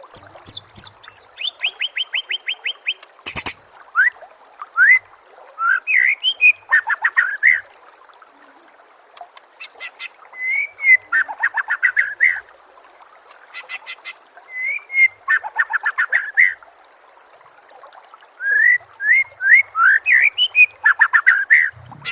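White-rumped shama (murai batu) singing: bursts of varied phrases (rising whistles, rapid trills and fast chirp series) with short pauses between them, over a faint steady hiss.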